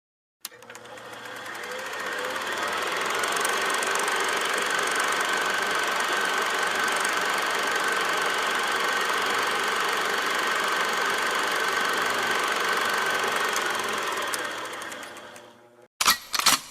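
A steady mechanical running sound with a fast rattle and a steady whine. It fades in over a few seconds, holds level, then fades out and is followed by a couple of short sharp sounds.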